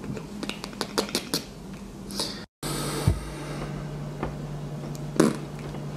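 Paper and a pen being handled on a desk: light rustles and small clicks in the first second or two. The sound drops out briefly about halfway through, and after that a steady low electrical hum runs under a few faint clicks.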